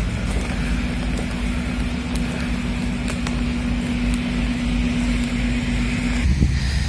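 A vehicle running with a steady low rumble and a steady hum over it. About six seconds in the sound changes abruptly to a rougher, more uneven rumble.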